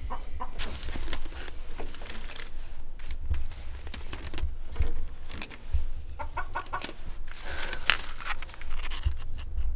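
Chickens clucking a few short times, over rustling and handling noise in the straw of a nest box.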